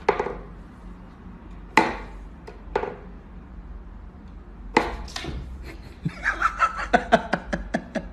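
Wooden whack-a-mole cat toy knocking as its pegs are pushed up through the holes and the cat bats at them: single sharp knocks a second or so apart, then a quick run of taps near the end, with a person laughing.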